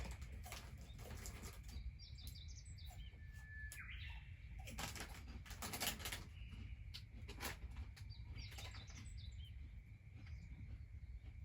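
Wood fire crackling in irregular sharp clicks, with small birds chirping in short bursts twice.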